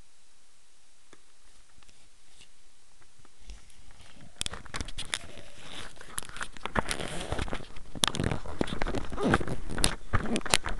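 Handling noise of a small camera being moved about: close rubbing, rustling and knocks on its microphone, starting about three seconds in after faint hiss and growing louder and denser.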